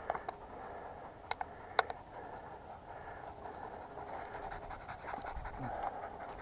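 Footsteps rustling through dry grass, with panting breath. A few sharp clicks come in the first two seconds, the loudest just before two seconds in.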